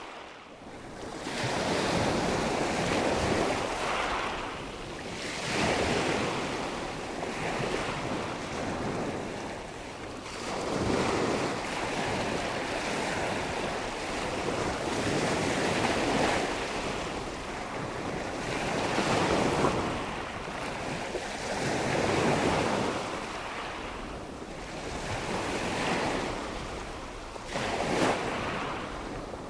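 Ocean surf: waves breaking and washing in, swelling and ebbing in slow surges every few seconds.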